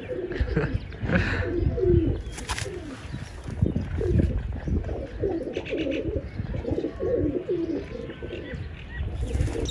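Domestic pigeons cooing, a run of low repeated coos that is clearest through the middle stretch.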